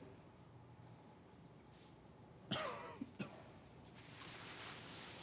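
A person coughing once about halfway through, after a quiet stretch, followed by a short click; a faint hiss builds toward the end.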